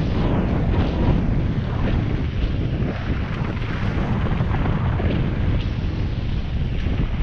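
Wind buffeting the camera microphone over the rumble of mountain bike tyres on a dirt trail, with brief rattles and clicks from the bike over bumps on a fast descent.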